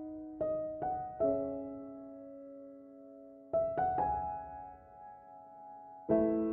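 Slow background piano music: a few notes, then a held chord about a second in, another group of notes about three and a half seconds in, and a new chord near the end, each ringing and fading slowly.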